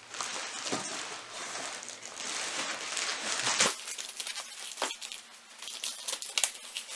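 Crinkling and rustling of material being handled, with scattered light clicks and taps.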